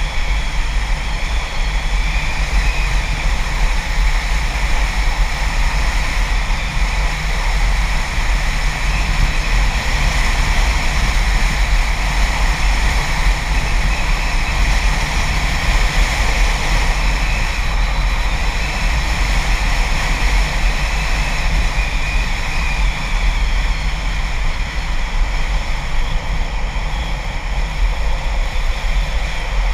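Steady rush of wind buffeting a board-mounted action camera's microphone during a fast downhill run, with the continuous roll of skateboard wheels on asphalt underneath.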